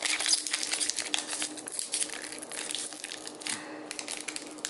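Foil booster-pack wrapper of a Pokémon trading card game pack crinkling and crackling as hands pinch and pull at its tightly sealed top, trying to tear it open. The crackling eases off briefly about three and a half seconds in, then starts again.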